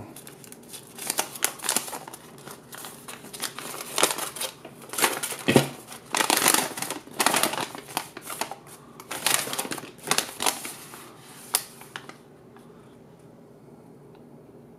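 A paper instruction manual being unfolded and handled, crinkling and rustling in irregular bursts that stop about twelve seconds in.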